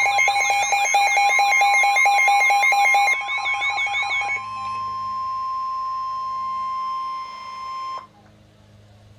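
Emergency alert attention signal: a loud alarm of rapid repeating beeps over steady tones, which cuts off about four seconds in. A quieter single steady tone follows and stops about eight seconds in, announcing a flood warning broadcast.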